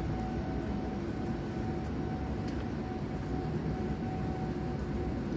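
Steady low rumble of distant machinery, with a faint steady hum over it and a few light ticks.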